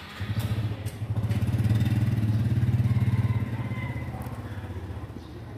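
A motor scooter engine running close by with a pulsing low rumble, loudest for the first few seconds and then easing to a lower, steady running.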